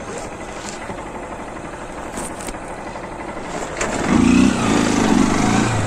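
Motorcycle engine running with a steady, rapid firing rumble, growing louder from about four seconds in.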